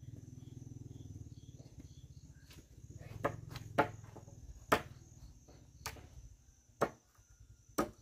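Crickets trilling steadily in the background, with about seven sharp wooden knocks as sawn planks and logs are handled and set down. A low rumble runs under the first half and stops about halfway through.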